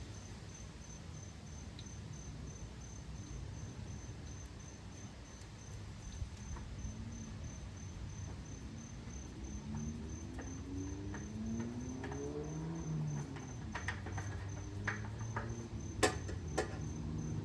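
An insect trilling steadily in a high, pulsing chirp over a low background rumble, with a few light clicks near the end.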